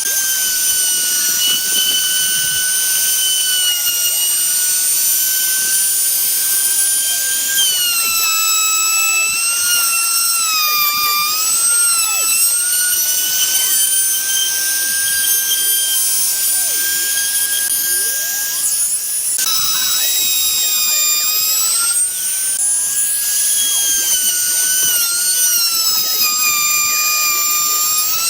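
A small high-speed power tool's motor running with a high whine that sags in pitch several times as it takes load while working wood, then recovers.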